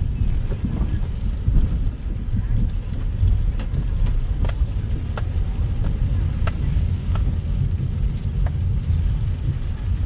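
Inside a car moving slowly on wet pavement in heavy rain: a steady low rumble of the car, with scattered sharp ticks of raindrops striking the windshield and roof.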